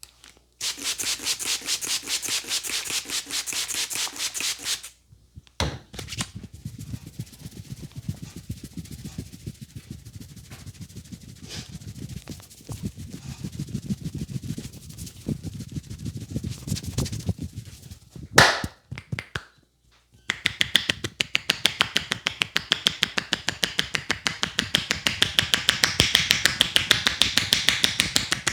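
A barber's hands working fast over a head and hair in a vigorous head massage: rapid, even slapping and rubbing strokes in three bouts, the middle bout duller and lower. A single sharp crack comes just past the middle.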